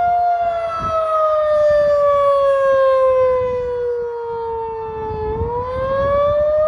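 Federal Signal 2001-SRN electromechanical outdoor warning siren wailing during a test. Its pitch holds for a moment, falls slowly for about five seconds, then begins to rise again near the end.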